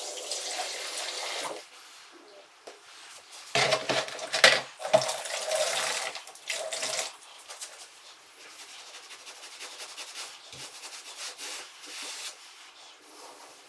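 Water running and splashing as a grout bucket is rinsed out under a tap. There is a louder stretch of splashing and knocks from about three and a half to seven seconds in, then quieter running water.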